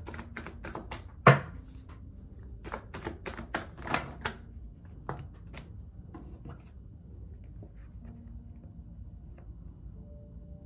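Tarot cards shuffled by hand: a rapid run of card clicks, a sharp snap about a second in, then more quick runs of clicks over the next few seconds before the handling settles down.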